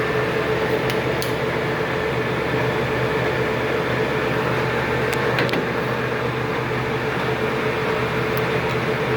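LeBlond Makino engine lathe running steadily with the spindle turning and the power feed driving the carriage, a constant gear-and-motor hum with a few light clicks.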